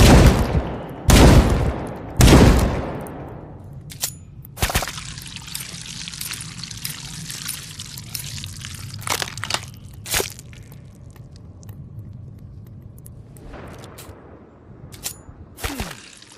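Three rifle shots about a second apart, each trailing off in a long echo, followed by scattered quieter clicks and knocks.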